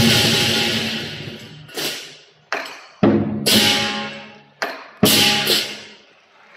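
Lion dance percussion: cymbal and gong crashes in a slow pattern, a light hit then a loud crash every two to three seconds, each left to ring out and fade.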